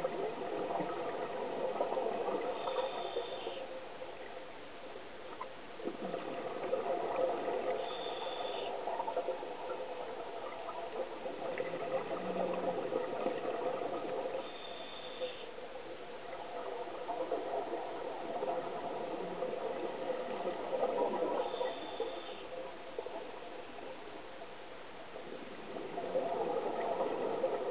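Scuba regulator breathing heard underwater: exhaled bubbles gurgle in swells of a few seconds, and a short higher hiss comes back about every six seconds with each breath cycle.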